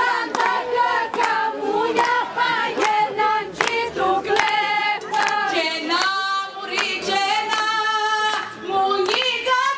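A group of people singing a song together, with steady rhythmic hand-clapping in time.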